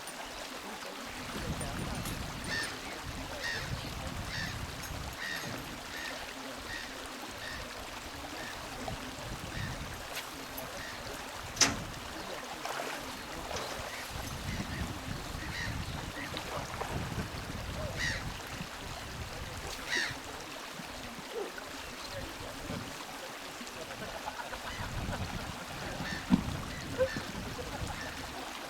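A bird calling in a run of short, evenly spaced notes, about two a second, then a few scattered calls, over a low steady rushing noise. A single sharp click sounds near the middle.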